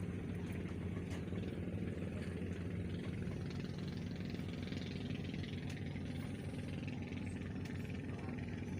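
Purse seine fishing boat's engine running steadily with an even, low hum.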